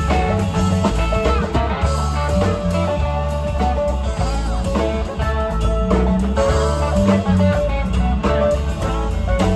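Live rock band playing: electric guitars over bass guitar and drums.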